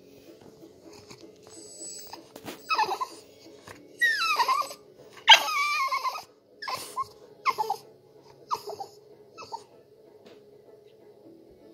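French bulldog whining and whimpering in a string of about seven high, falling cries, the longest and loudest about four to six seconds in, begging to be let up onto the couch.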